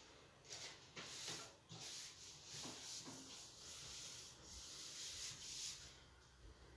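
Hands rubbing and smoothing a yellow paper circle down onto a paper plate: soft, faint paper swishes in a run of strokes that stops shortly before the end.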